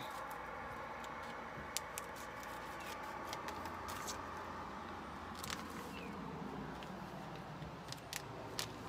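Sharp snips and clicks of scissors and the crackle of cardboard and paper packaging as a small package is cut open and unwrapped by hand, over a steady background hum.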